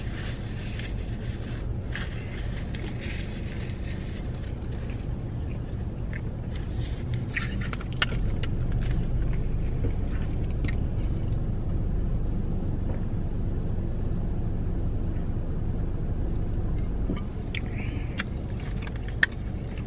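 Steady low rumble of a car running, heard from inside the cabin, under scattered crackles and clicks of eating and handling a plastic drink bottle: swigs from the bottle around the middle, and the cap twisted back on near the end.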